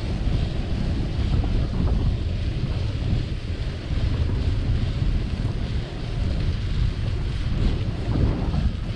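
Wind buffeting the microphone of a camera riding on a moving bicycle: a steady, fluttering low rumble with hiss on top.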